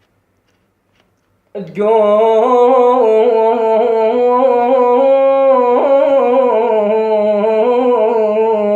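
A man's unaccompanied voice singing one long, wavering held note with ornaments in Iraqi folk style. It starts suddenly about a second and a half in, after a brief silence.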